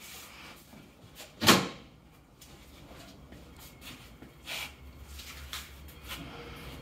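Plywood shipping-crate lid handled and set down, with one loud knock about one and a half seconds in. Then a few softer bumps and rustles as foam packing sheets are lifted out of the crate.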